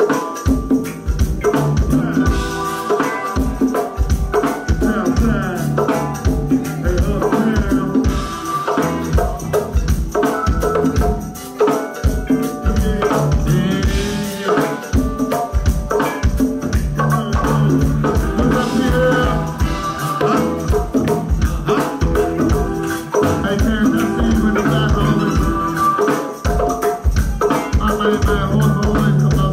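Live band music with a steady drum beat and sustained pitched chords over it.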